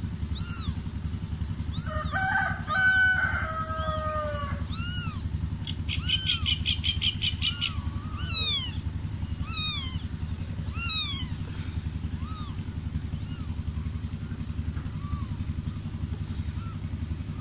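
Newborn kittens mewing in short, repeated high cries over a steady low engine drone. A rooster crows about two seconds in, and a rapid chattering trill comes around six seconds in.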